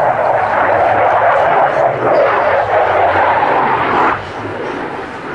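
Loud jet noise from an AMX attack jet's Rolls-Royce Spey turbofan as it flies a display pass, a steady rushing roar that drops off sharply about four seconds in.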